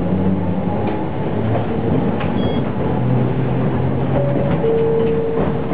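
Interior running sound of the Toyohashi Railway Mo3200-series tram: the low growl of its nose-suspended traction motors and gears under way, with scattered knocks. A steady whine comes in a little over four seconds in and holds.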